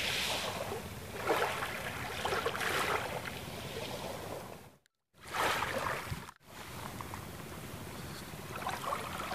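Small waves washing onto a shore of coral rubble, swelling and falling back every second or two. The sound cuts out abruptly for a moment about five seconds in, then resumes.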